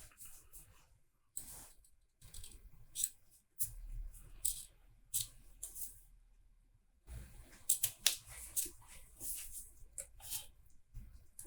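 Handling noise: irregular light clicks, scrapes and rustles as tools and multimeter test leads are picked up and moved about on a workbench.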